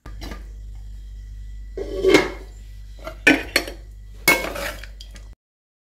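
Steel ladle scraping and knocking against a metal pan as rice-noodle sevai is stirred and scooped, with a few sharp clinks about two, three and four seconds in, over a steady low hum.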